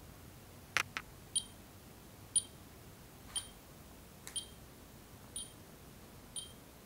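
Arduino alarm's piezo buzzer giving a short high beep once a second, six times, counting down the arming delay after an NFC tag is read. Two sharp clicks come just before the first beep.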